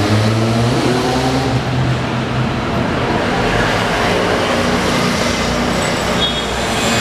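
A motor vehicle's engine running with steady road noise.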